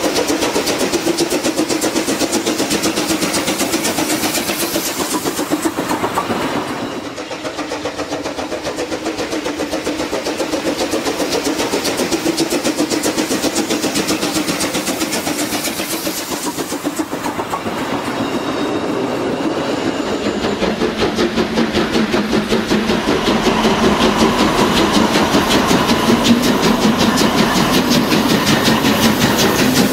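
HO-scale model trains running on the layout: a steady mechanical running sound with a fast rattle of wheels on track, a little louder in the second half.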